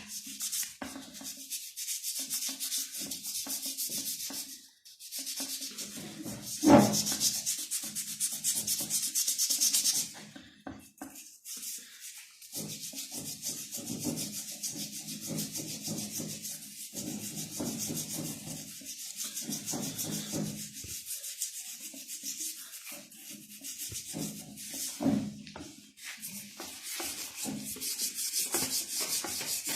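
Hand scrubbing and rubbing on a Honda CG 125 motorcycle's rear hub with cleaner and red polishing compound: quick repeated strokes, broken by a few short pauses. A single sharp knock about seven seconds in.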